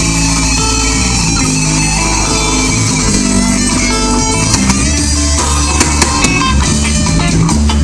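Live rock band playing an instrumental passage: electric guitar over a steady bass line, with drum and cymbal hits.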